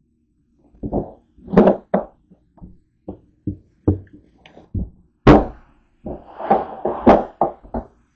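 A white plastic storage bin being opened and rummaged through, its lid and sides knocking and thunking as bags of bread are handled inside. About a dozen irregular knocks of varying loudness, with the loudest a little past the middle and a busy cluster near the end.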